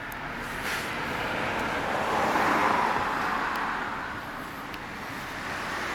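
A road vehicle passing by: a smooth rush of traffic noise that swells to a peak about halfway through and then fades away.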